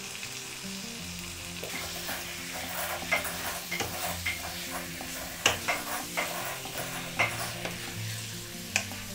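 Spiced beef pieces sizzling in oil in a stainless steel kadai while being stirred with a wooden spatula. From about two seconds in, the spatula knocks and scrapes against the pan in quick, irregular strokes over the steady sizzle.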